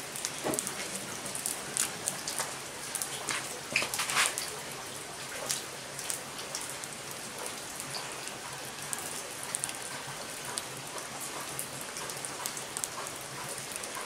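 Small wood fire burning under cooking pots, with irregular sharp crackles and pops over a steady rain-like hiss. The loudest pops come in a quick cluster about four seconds in.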